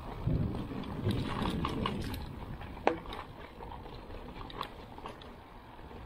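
E-mountain bike riding over rough trail ground, with wind noise on the action camera's microphone and irregular rattles and clicks from the bike, one sharp click about three seconds in.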